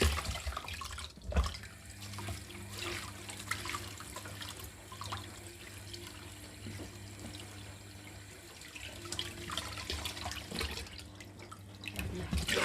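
Sea grapes being rinsed in a sink: water splashing and trickling unevenly, with a few small knocks.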